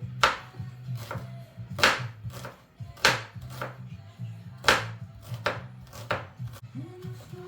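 Kitchen knife chopping through potatoes onto a cutting board, cutting chunky chips: about eight sharp, irregular chops, the loudest a second or so apart.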